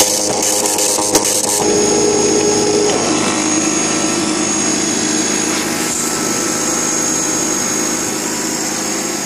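TallyGenicom T6215 line matrix printer printing a character test page, a fast dense mechanical rattle of the print hammers. About a second and a half in the rattle stops, and a steady whirring, whining mechanical sound from the printer carries on.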